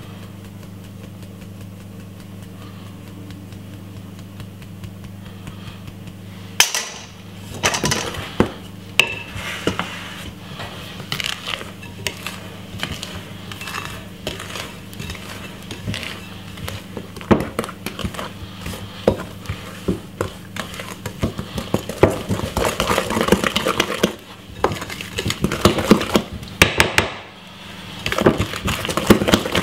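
A wooden spoon knocking and scraping against a glass mixing bowl as sieved flour is stirred into sponge-cake batter. The irregular clicks and knocks start about six seconds in; before that there is only a steady low hum.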